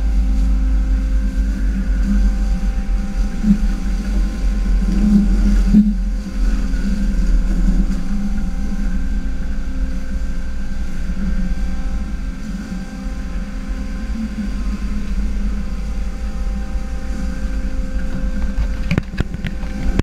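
Fishing boat under way: a steady engine drone with water spraying and rushing along the hull and a heavy low rumble. A short sharp knock near the end.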